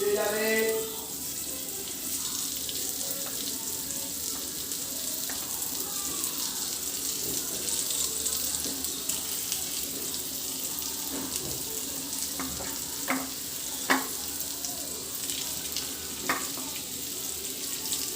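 Cornflour-coated chicken pieces sizzling steadily as they shallow-fry in hot butter in a frying pan. A few short sharp knocks come about 13, 14 and 16 seconds in.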